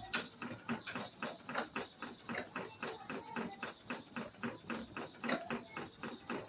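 A hair clipper blade rubbed back and forth on a sharpening stone wet with kerosene: quick, even scraping strokes, several a second, part of a count of thirty strokes per side.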